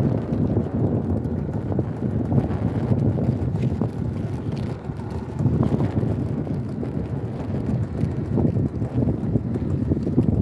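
Wind buffeting the microphone, heard as a heavy, uneven low rumble, with a few faint knocks and splashes as a wire fish pot is hauled out of the water against the boat's side.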